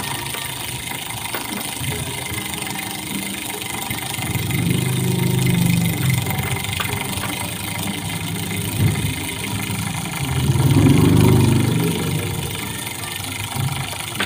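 Flexible-shaft rotary tool's motor running as its handpiece works a decorative pattern into a monel ring. Its hum swells louder twice, about five seconds in and again about eleven seconds in.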